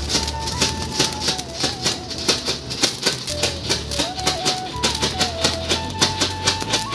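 Music with a steady beat: a stepping melody line over regular strokes about three a second and a low bass.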